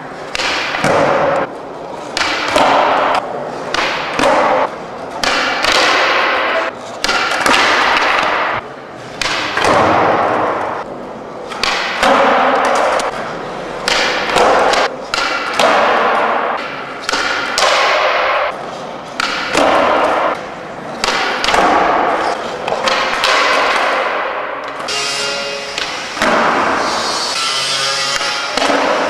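Music with a heavy, regular thudding beat, about one beat a second, with held tones coming in near the end.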